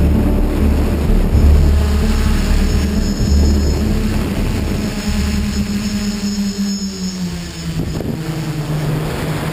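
An FPV model aircraft's electric motor and propeller running steadily, heard through the onboard camera's microphone with gusty wind rumble over it. The motor's pitch drops slightly near the end.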